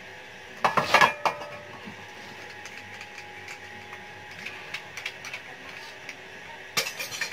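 A welded metal motorcycle exhaust muffler set down onto steel plates with a few loud metallic clanks about a second in. Light knocks and clicks of metal being handled follow, with a few more near the end.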